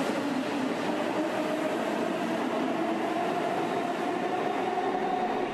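Shinkansen bullet train in a station, heard as a steady rushing noise with a faint even hum under it.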